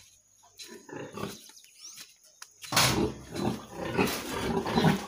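Pigs grunting loudly and continuously, starting about halfway through after a quiet stretch with a few faint knocks.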